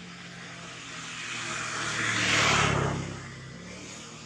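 A motor vehicle passing close by: its engine hum and road noise swell to a peak about two and a half seconds in, then fade away within a second.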